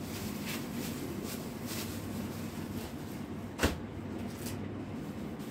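A hand rummaging in a plastic storage bin: light rustling and one sharp knock a little past halfway, over a steady low hum.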